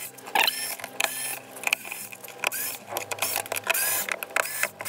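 Small electric screwdriver whirring in short bursts, each a brief whine that rises and falls, as it backs out the battery-cover screws, with sharp clicks and knocks in between.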